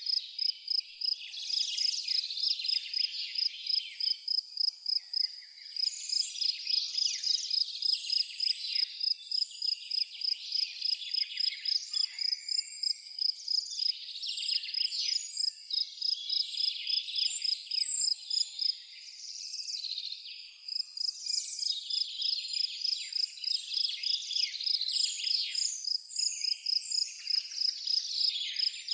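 A cricket chirping in a steady high pulse about three times a second, pausing for a couple of seconds past the middle, while several birds sing and twitter over it.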